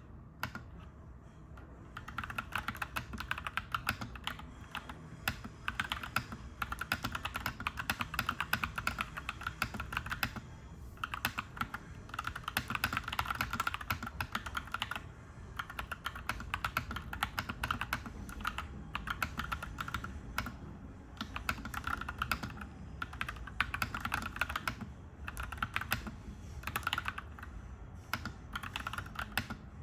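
Clacky mechanical keyboard being typed on in fast, continuous runs of keystrokes, with a few brief pauses between runs.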